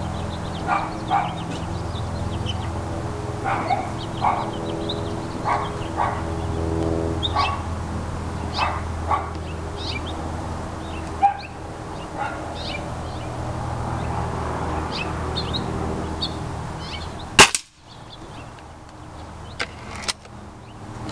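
Repeated short barks over a steady low hum. Near the end comes one sharp, loud crack of a shot from a .22 break-barrel spring-piston air rifle, the Beeman RS2 Grizzly X2, with the pellet knocking over a spinner target. Two lighter clicks follow.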